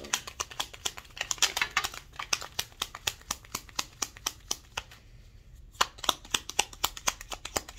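Tarot deck being shuffled by hand: a quick, irregular run of card flicks and snaps. It pauses for about a second near the five-second mark, then starts again.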